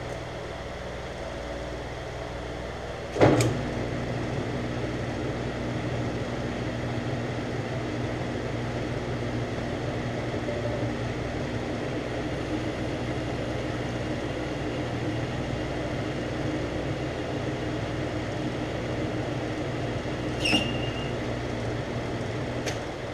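Metal lathe running as it turns Delrin plastic stock: a steady motor and gear hum while the cutting tool takes a pass along the bushing's diameter. There is a sharp click about three seconds in. Near the end the Delrin gives a brief high screech under the tool.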